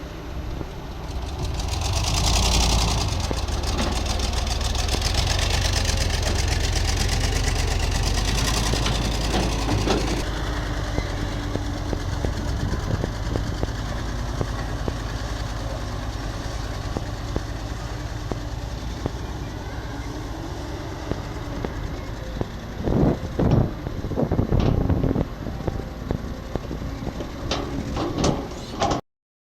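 Heavy diesel excavator running with a steady low rumble. From about a third of the way in a steady high whine sits over it, and several loud knocks come near the end before the sound cuts off suddenly.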